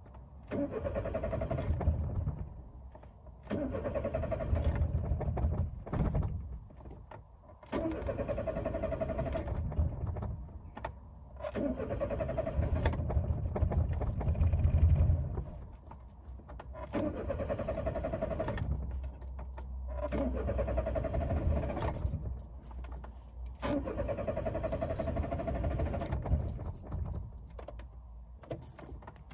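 Peugeot 205's warm 1.0-litre carburettor engine cranking on the starter motor with full choke, in about seven bursts of two to three seconds with short pauses between, none settling into a steady run. Full choke on a warm engine makes the mixture too rich and floods it, so it will not start.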